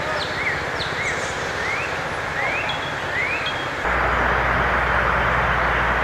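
A lawn mower engine running steadily in the background, with birds chirping over it. About four seconds in, the mower suddenly gets louder and the birdsong is lost under it.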